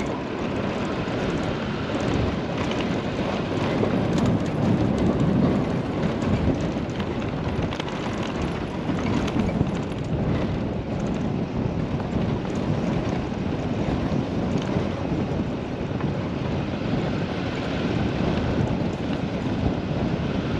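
Pickup truck driving on a gravel road: steady tyre and road rumble with scattered small ticks and rattles, and wind noise on the microphone.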